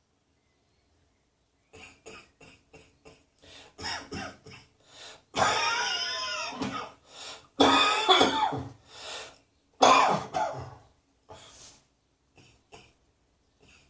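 A person coughing repeatedly: a run of short coughs starts about two seconds in, builds to three long, loud coughing fits in the middle, then tapers off to a few small coughs near the end.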